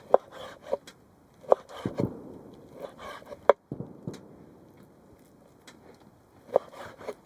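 A kitchen knife chopping food on a board: irregular sharp knocks, several in quick succession, then a pause of a couple of seconds before a few more near the end.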